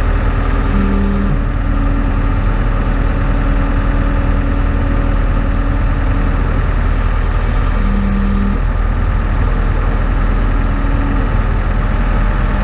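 Skid steer engine running steadily under work. Twice, a brief hiss with a steady hum comes in over the engine: once about half a second in, and again around seven seconds in.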